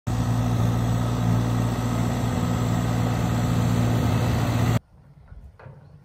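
John Deere tractor's diesel engine running steadily with a strong low hum. It cuts off abruptly about five seconds in, leaving only faint sounds.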